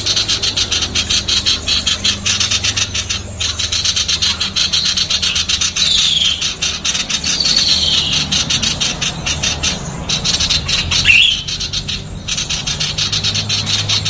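Female common iora calling in a rapid, dense, harsh chatter, fast rasping notes run close together. A few falling whistled notes cut through, one about midway and one near the end.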